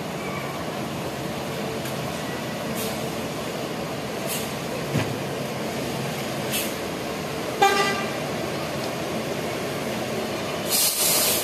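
Diesel bus engines running steadily, with a short toot of a bus horn about three-quarters of the way in and a brief hiss near the end.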